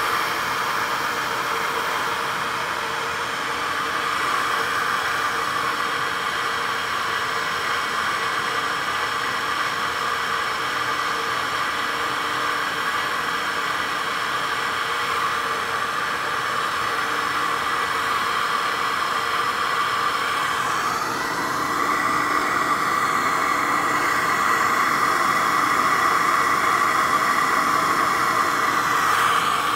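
SuperFlow SF-1020 flow bench's commercial fans running, pushing air through the exhaust port of a 12-valve Cummins cylinder head: a loud, steady rush of air and fan noise. About twenty seconds in the rush steps a little higher and louder.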